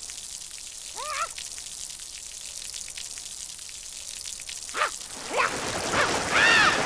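Steady hissing spray as jets shoot from a cartoon insect's body, getting louder toward the end. The insect gives a short squeaky whine about a second in and several more squeaks in the last two seconds.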